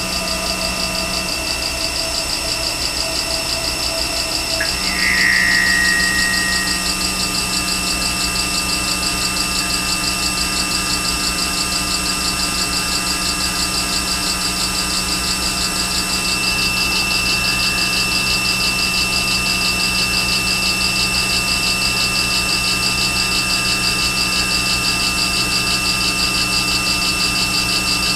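CNC vertical milling machine running, its spindle turning a 0.375-inch end mill at a slowed feed on a light scratch pass over a brass plaque: a steady hum and whine of several held tones. About five seconds in there is a brief, louder high-pitched squeal.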